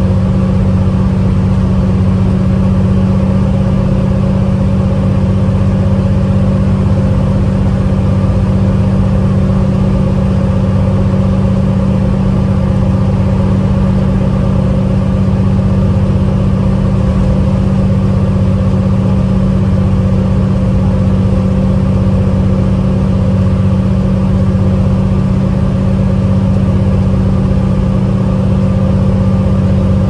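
Cabin noise of a 2010 New Flyer DE40LFA diesel-electric hybrid bus cruising at speed: its Cummins ISL inline-six diesel and hybrid drivetrain give a steady low drone with a fainter steady whine above it, mixed with road noise. The sound holds constant throughout.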